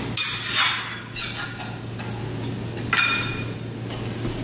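Steel épée blades clashing and scraping, three clashes with a brief metallic ring: just after the start, about a second in, and about three seconds in.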